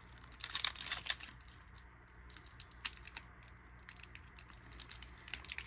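Pokémon trading cards handled and flipped through by hand: quiet light clicks and rustles of card on card, a cluster of them about half a second to a second in, then only sparse ticks.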